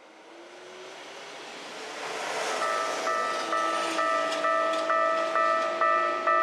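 A rising rushing noise builds, then about two and a half seconds in a railway level crossing's electronic warning bell starts ringing, a steady two-tone ding repeating about twice a second.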